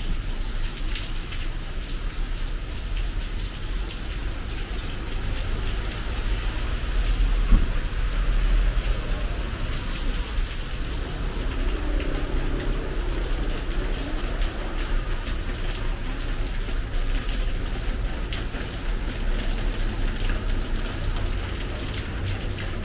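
Steady rain falling, with scattered drop ticks over a constant low rumble. A single brief thump sounds about seven and a half seconds in.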